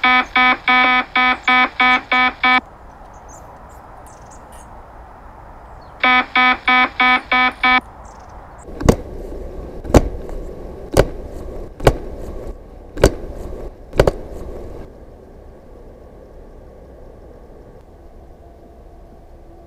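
Fish finder app's fish alarm beeping in rapid pulses, twice, the sign that the sonar has marked fish under the ice. Then six sharp smacks about a second apart as a baseball glove is struck, testing the toughness of the ball-shaped BONDA sonar.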